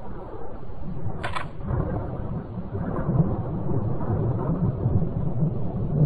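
Wind buffeting the microphone: a steady low rumble that rises and falls, with one short sharp click about a second in.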